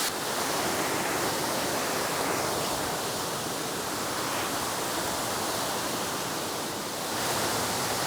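Steady rushing of a waterfall and stream, a dense even hiss of falling water.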